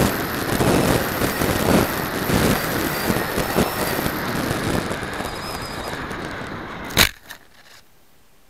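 Electric Radjet RC plane's high-revving motor, propeller and wind rush, heard through its onboard keyfob camera, fading over the last couple of seconds. About seven seconds in comes a sharp crash as the plane hits the long grass, with a smaller knock just after, and the motor sound stops.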